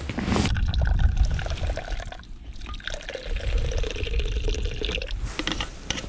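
Liquid pouring into a container in two spells with a short break about two seconds in; the second spell holds a steady pitch, like a vessel filling.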